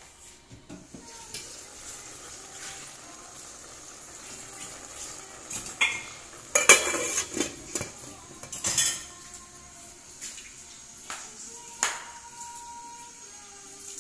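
Stainless steel pot lid handled on its pot: a series of metal clanks and clinks, the loudest about seven seconds in, with others a couple of seconds either side of it.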